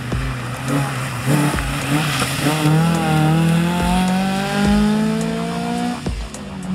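Suzuki Swift Sport rally car's engine rising steadily in pitch as it accelerates, mixed with background music with a steady beat.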